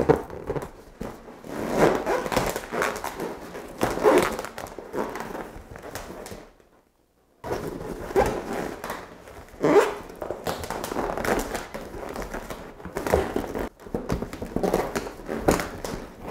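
Inflated latex balloons squeaking and rubbing against one another, with soft thumps, as balloon clusters are twisted onto a spiral balloon garland and the arch is handled. The sound drops out for about a second midway.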